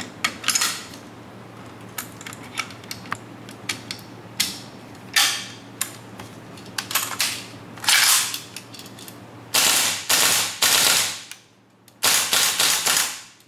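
Metal clicks as the WE AK74 gas blowback airsoft rifle is handled and closed up. In the second half come several short full-auto bursts from the rifle, whose CNC steel firing pin and steel hammer are being put to the test.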